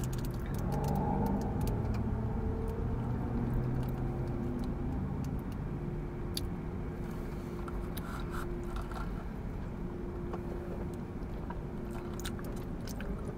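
Someone sipping brown-sugar boba milk tea through a wide straw and chewing the tapioca pearls, with small wet clicks, over the steady low hum of a car cabin.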